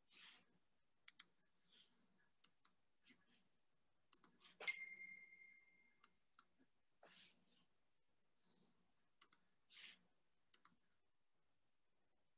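Near silence with faint scattered clicks, and a short ringing ding about four and a half seconds in.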